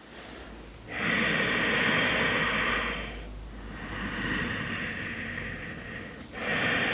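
A woman breathing deeply and audibly into a close microphone during slow, controlled leg circles: three long breaths, the first and last loudest.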